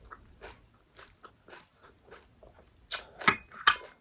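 A person chewing food close to the microphone: soft, quick mouth sounds, then three louder sharp smacks or crunches about three seconds in.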